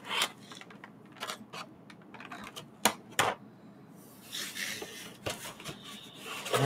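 Clear plastic blister tray of model-kit parts being slid out of a cardboard box and set down: scattered plastic clicks and crackles, with a sharper tap about three seconds in and a short spell of rustling after it.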